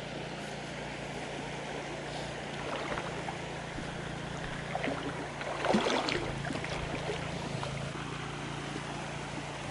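Shallow creek water flowing steadily over stones and around the wader's legs, with a brief voice sound about six seconds in.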